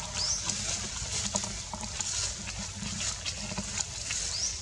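Outdoor ambience: a steady low hum and background noise with scattered small clicks, and two short, high rising chirps, one near the start and one near the end.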